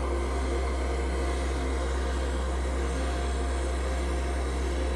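Gas canister camping stove burning under a pot, a steady, even hiss.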